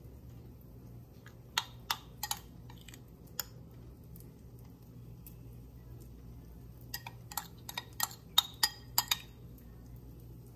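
A metal spoon clinking and scraping against a ceramic bowl as egg-and-oatmeal batter is scooped out. There are two bursts of quick, ringing taps, one starting about a second and a half in and a longer one from about seven to nine seconds in.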